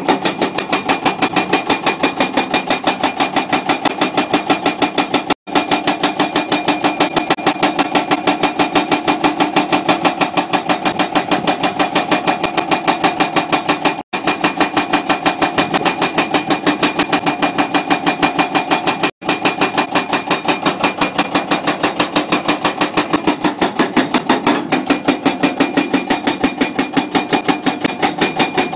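Hydraulic rock breaker (CMB CM 550 TP) on a CAT 345 excavator hammering steadily, its chisel striking in a rapid, even rhythm of several blows a second over the excavator's engine. The hammering cuts out abruptly three times.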